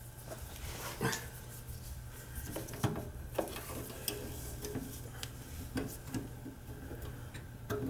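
Scattered light clicks and knocks of tools and metal furnace parts being handled while the flame sensor is cleaned and refitted, over a steady low hum.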